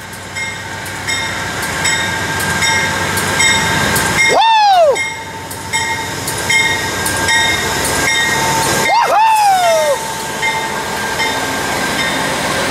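Amtrak diesel locomotive and passenger cars rolling past, a steady rumble with a bell dinging about twice a second throughout. Two whooping "woo" calls rise and then fall in pitch, about four and nine seconds in.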